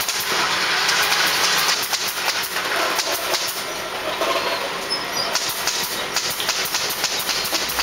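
Dense scratchy rustling and clicking of a mass of live scorpions crawling over one another in a plastic basin.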